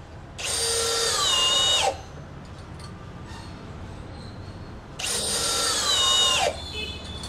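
Milwaukee M18 FPD3 brushless cordless hammer drill, in plain drill mode, driving wood screws into a hard wooden block at top speed, twice. Each run lasts about a second and a half, and its high whine drops in pitch near the end as the screw drives home, then stops.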